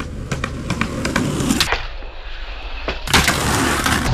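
Skateboard wheels rolling on rough concrete, with several sharp clacks of the board striking the ground. The sound dulls abruptly a little before halfway, then comes back bright with a loud clack.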